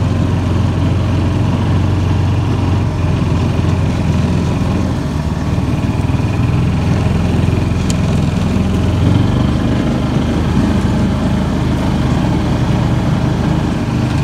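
John Deere Gator utility vehicle's engine running steadily while the vehicle drives along a dirt trail, heard from the seat. Its pitch shifts slightly around the middle.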